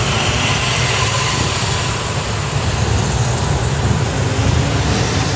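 Motorcade vehicles driving past one after another, an ambulance and police cars among them: a steady, loud rush of engines and tyres over a low rumble.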